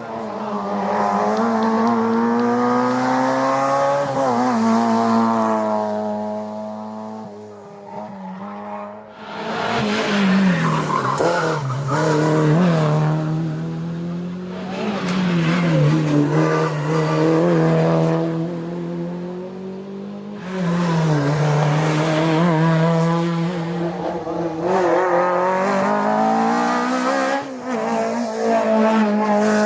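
Historic racing car engines running hard at high revs, their pitch rising and dropping repeatedly as they shift gears and lift for corners, with several loud surges as cars come close.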